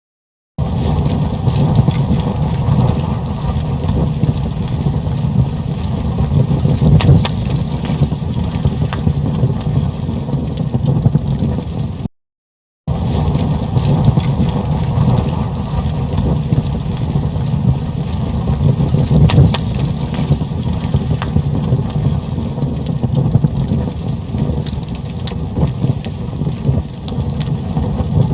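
A fire burning: a steady low rumble of flames with scattered crackles and pops. The sound cuts out completely for under a second about twelve seconds in, then resumes.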